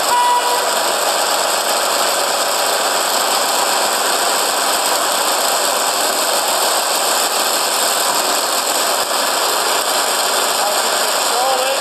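REED concrete pump running steadily and loudly, an even mechanical noise with no changes, while its hydraulic cylinders are stroked slowly to the end of the stroke.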